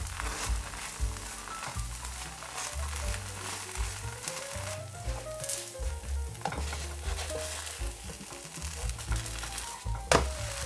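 Thin potato-batter pancake sizzling in oil in a nonstick frying pan, with a plastic spatula scraping and pressing on it. A single sharp knock near the end as the pancake is lifted to be turned.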